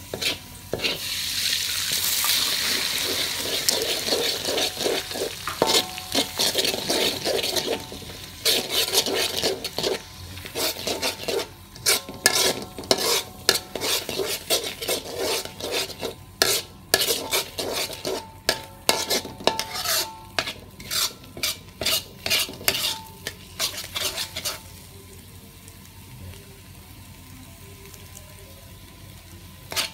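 Beaten eggs frying in hot oil in a wok: a loud sizzle starts about a second in, then a metal spatula scrapes and taps rapidly against the wok as the eggs are scrambled. After about 24 seconds the strokes stop and only a quieter, steady sizzle remains.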